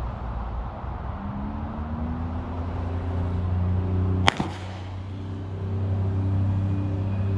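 A single pistol shot about four seconds in, over a steady low engine drone.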